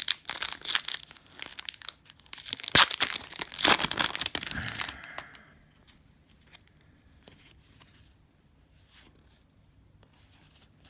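The wrapper of a basketball trading card pack being torn open and crinkled, a dense crackling for the first five seconds or so. After that only faint light ticks of cards being handled.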